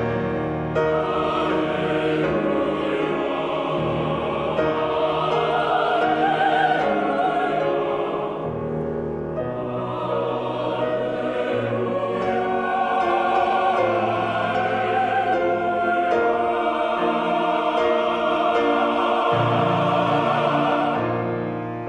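A mixed chamber choir singing sustained chords that swell and ease, accompanied by strings.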